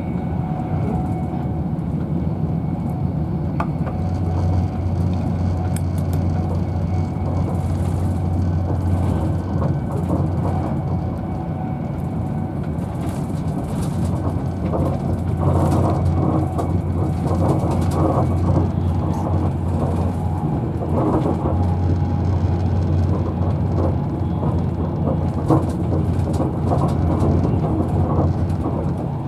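Steady running noise of a Virgin Trains Class 390 Pendolino electric train at speed, heard from inside the passenger coach: a continuous low rumble and hum of wheels on rail, with scattered light ticks from the track. It gets a little louder about halfway through.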